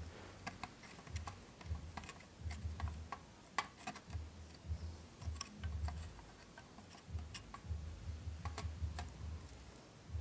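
Scattered small plastic and metal clicks and taps as a RAM module is handled and pushed into a Mac Pro memory slot, with low handling bumps in between.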